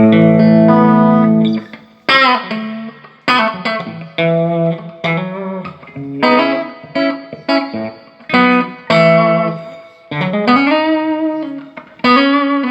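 Electric guitar played through a Peavey Classic 30 tube combo amp, working again after its filter capacitors were replaced. It opens with a chord held for about a second and a half, then goes into short chord stabs and single notes, with a string bent up and back down near the end.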